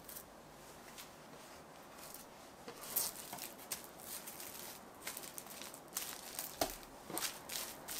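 Kitchen food-preparation handling sounds: scattered light clicks, taps and rustles, with sharper clicks about three seconds in and several more in the last few seconds.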